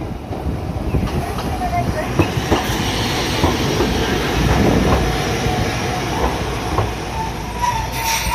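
Hakodate city tram running on street track and passing close at low speed: wheels rumbling and clicking over rail joints, loudest about halfway through as it goes by, with thin wheel squeal on the rails, strongest near the end.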